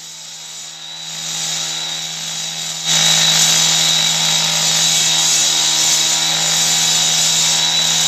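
Power chop saw (cut-off saw) of the kind used on concrete, running with a steady high whine over a hiss. It grows louder through the first seconds, then jumps suddenly louder about three seconds in and holds there.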